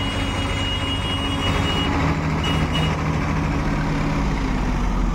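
Sonalika DI 740 tractor's three-cylinder diesel engine running as the tractor moves through soft, muddy ground, its note shifting about two seconds in. A thin high tone sounds over the first three seconds.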